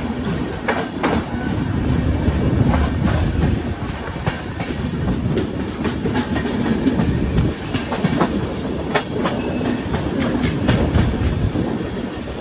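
Express train coaches running on the rails: a steady rumble with irregular clicks and clacks of the wheels over rail joints.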